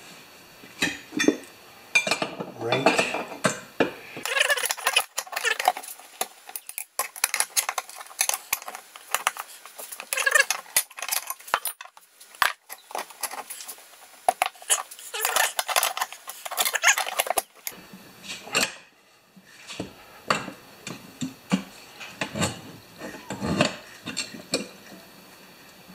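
Steel tire irons clinking, scraping and clattering against a steel wheel rim as a small tractor tire's bead is levered over it. For about 13 seconds in the middle the clatter comes fast and dense, as in sped-up playback.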